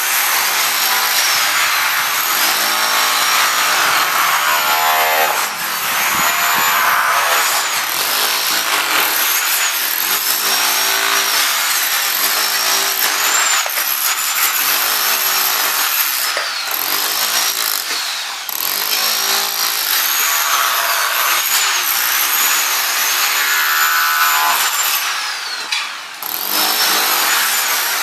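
Electric hammer drill chiselling ceramic tiles loose, running loud and near-continuous with brief let-ups about five, eighteen and twenty-six seconds in.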